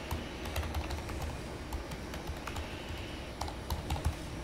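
Typing on a computer keyboard: an uneven run of key clicks.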